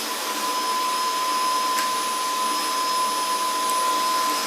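Vacuum cleaner running steadily with a high whine, its nozzle being run over a cat's fur.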